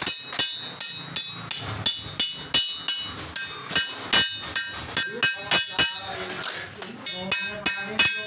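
Hammer striking stainless steel sheet, a steady run of blows two or three a second, each with a bright metallic ring. The strikes ease off briefly about six seconds in, then resume.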